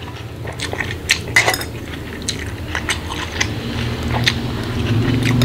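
Metal spoon and fork clinking and scraping against a glass bowl of bakso and rice while eating, in scattered sharp clicks over a steady low hum.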